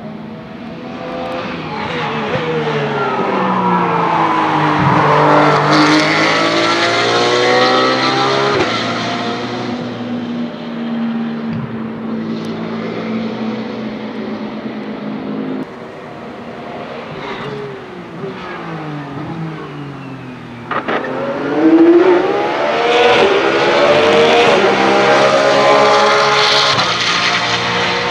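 Porsche 992 GT3 R race car's 4.2-litre flat-six, fitted with a silenced exhaust, passing at speed several times. The engine pitch climbs through the gears under acceleration and drops as it slows for corners, loudest about two-thirds of the way through.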